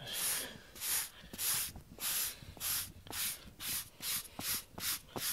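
Urethane pet-hair remover rubbed back and forth over a carpet-pile foam floor mat, making a dry scrubbing stroke about twice a second as it gathers shed cat hair.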